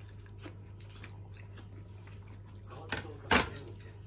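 Tableware at a meal: faint clicks of chopsticks against a ceramic rice bowl, then two sharp knocks a little after three seconds in, the second the louder, as the bowl is set down on the table. A steady low hum runs underneath.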